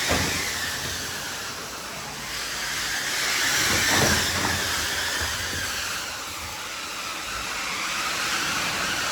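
Ice-crushing machine blowing crushed ice through a chute into a fishing boat's hold: a steady rushing hiss that swells about four seconds in, then eases.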